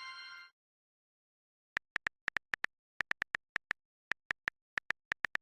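A ringing chime dies away in the first half second. After about a second of dead silence, a run of about twenty short, identical electronic beeps follows, all at one high pitch and in uneven groups.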